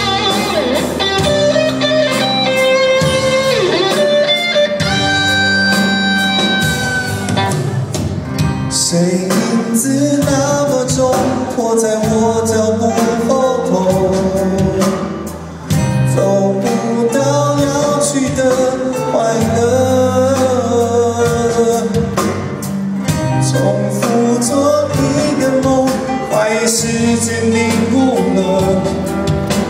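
A live rock band playing in a concert hall: electric and acoustic guitars, bass, drums and keyboard, with a sustained lead melody over them. The sound dips briefly about halfway through.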